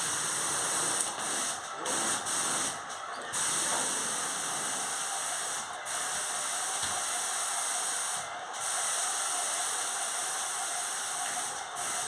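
Spray gun spraying Bronya liquid thin-film thermal insulation coating: a loud steady hiss that breaks off briefly several times.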